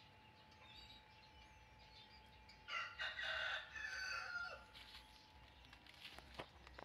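A rooster crowing once: a single crow of about two seconds that begins near the middle and trails off on a falling note.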